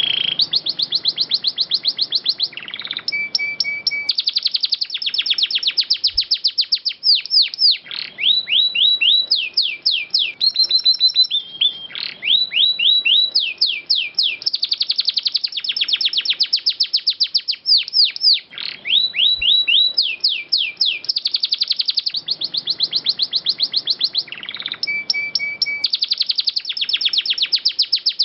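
Domestic canary singing without a break: long rolling trills and runs of rapid, repeated sweeping whistled notes, high-pitched and clear.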